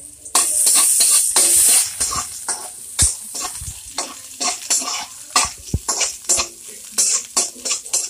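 Chopped red onion and garlic sizzling in hot oil in a wok. The sizzle is loudest for the first couple of seconds, then eases while a metal ladle scrapes and knocks against the wok in repeated strokes as the pieces are stirred.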